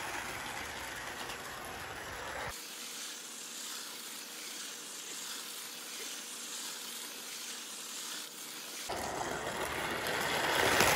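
A model 4-4-2 Atlantic steam locomotive running round a circle of model railway track: the steady whirring rattle of its small electric motor and wheels on the rails. It grows louder near the end.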